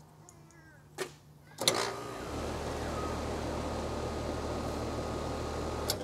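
An AC condenser's contactor snaps in, pushed closed by hand, and the compressor starts, running with a steady electrical hum and whooshing noise for about four seconds until it cuts off with a click as the contactor is let go. The compressor is starting through a newly fitted hard start kit (potential relay and start capacitor).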